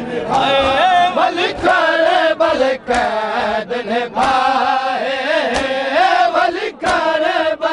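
Male mourners chanting a nauha, with sharp slaps of matam (hands beating on bare chests) landing about every second and a quarter in time with the chant.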